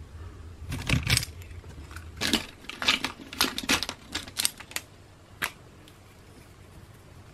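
Pens and pencils clattering against each other as a hand rummages through a basket full of them: a quick run of sharp plastic clicks and rattles, with one last click about five and a half seconds in.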